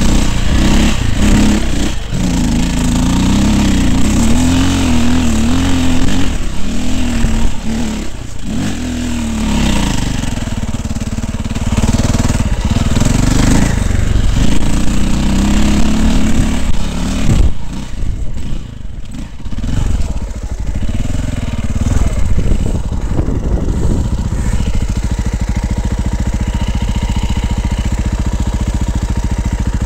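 Dirt bike engine revving up and down repeatedly under load as the bike climbs steep dirt slopes. About three quarters of the way in, it settles to a steady idle.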